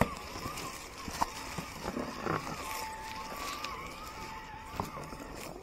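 1/10-scale Element Sendero HD RC crawler's 16-turn brushed electric motor and geartrain whining, the pitch wavering as the throttle changes and holding steady for a couple of seconds in the middle. Scattered clicks and knocks from the tyres and chassis working over the ground.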